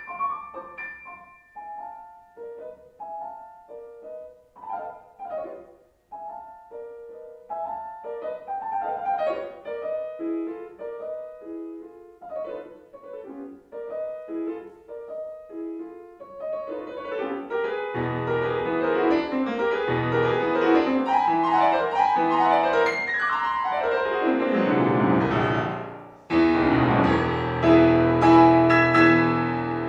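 Solo grand piano playing classical music. It starts with light, separate phrases in the middle register, moves to fuller chords with bass about halfway through, then plays a fast descending run. A loud chord is held and fades near the end.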